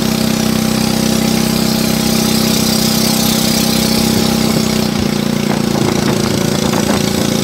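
Small boat's motor running steadily at cruising speed, one even, unbroken note.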